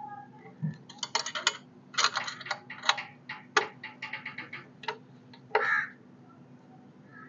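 10 mm spanners clicking and ticking against a nut and bolt as it is tightened, in quick clusters of sharp metal clicks, with a short rasping sound near the end.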